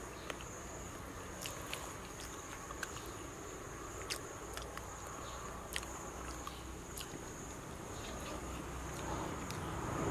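A steady high-pitched insect trill, with scattered sharp clicks over it.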